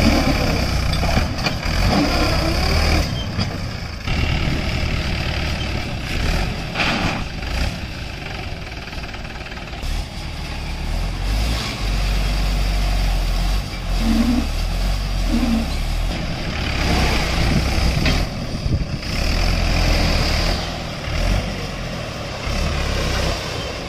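Mahindra 575 DI tractor's four-cylinder diesel engine running, its speed rising and falling as it drives the hydraulics that tip a loaded trailer to dump soil.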